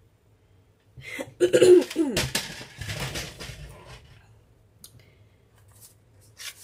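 A woman coughing and clearing her throat about a second in, a short voiced sound followed by a few rough, noisy coughs.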